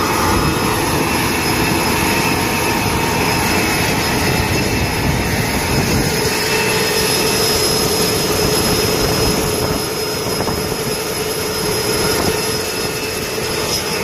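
M1 Abrams tank's gas-turbine engine running, a steady jet-like whine, with wind buffeting the microphone.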